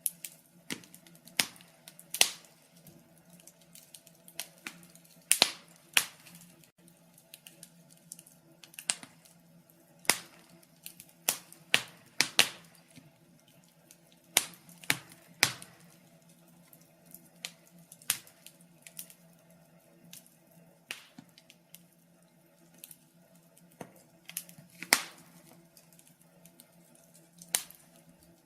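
Wood fire crackling: irregular sharp pops and snaps, a few at a time with quiet gaps between, some much louder than the rest, over a faint steady low hum.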